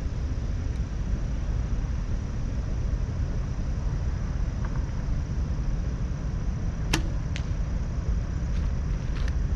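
A compound bow is shot: one sharp snap as the string is released about seven seconds in, then a fainter crack about half a second later. It all sits over a steady low rumble.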